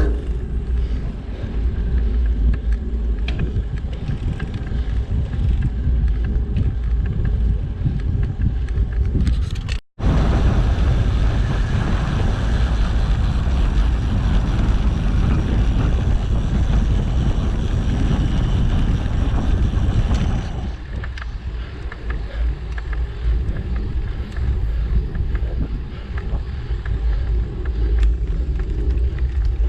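Wind rushing over an action camera's microphone while cycling: a steady low rumble with a rushing hiss. It cuts out for an instant about a third of the way in, then comes back louder for about ten seconds before easing.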